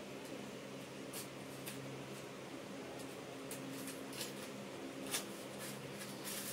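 Small cardboard boxes of fishing hooks being handled and opened by hand: scattered light clicks and paper rustles. Under them a steady low hum.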